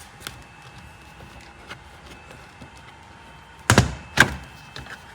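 Plastic trim being handled while wiring is tucked along the Tesla Model 3's rear trim: a few faint clicks, then two loud knocks about half a second apart, near the end.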